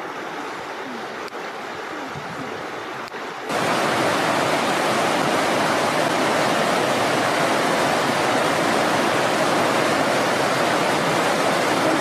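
Rushing water of a mountain stream pouring over rocks, a steady even rush. About three and a half seconds in it jumps abruptly much louder and brighter, as if cutting to a spot right beside faster water.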